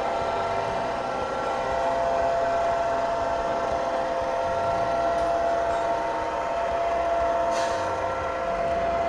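Diesel locomotive sound from a Tsunami2 DCC sound decoder, played through a small speaker in an HO scale F3 model: the prime mover running steadily with a held, humming tone, and a brief hiss near the end.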